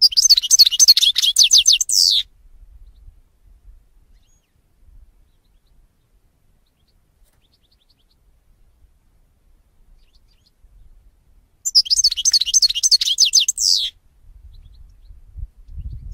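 European goldfinch singing: two quick phrases of rapid, tinkling high notes, each about two seconds long and ending in a falling note, about ten seconds apart. A low rumble follows the second phrase near the end.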